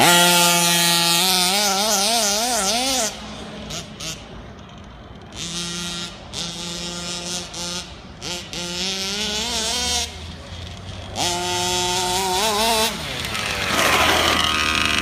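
HPI Baja 5B's G340 two-stroke petrol engine running on its first run after a rebuild, its note wavering up and down as the throttle is worked. It drops back to a lower, quieter note a couple of times, and near the end there is a sweeping rise in pitch.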